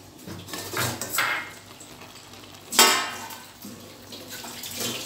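Stainless-steel plate lid lifted off a kadhai, with a couple of softer clinks and scrapes about a second in, then one loud metallic clang that rings briefly about three seconds in as it is set down.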